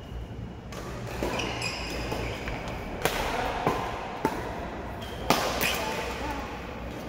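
Badminton rackets striking a shuttlecock in a fast rally, five sharp smacks about a second apart, echoing in a large hall, with a few short squeaks.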